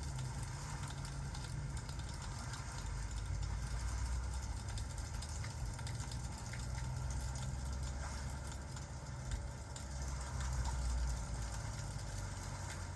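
Fireplace ambience: a wood fire crackling with scattered small pops over steady rain, under a constant low rumble.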